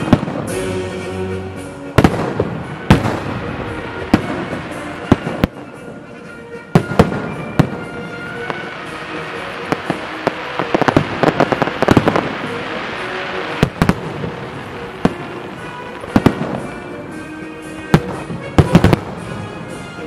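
Fireworks salute: aerial shells bursting in repeated sharp bangs about every second or two, with a rapid run of crackling near the middle. Music plays underneath.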